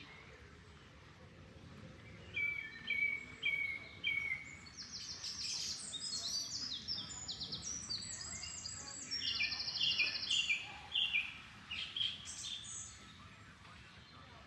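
Songbirds singing: runs of quick repeated notes and trills start about two seconds in and thin out near the end. Underneath is a faint steady rush of flowing water.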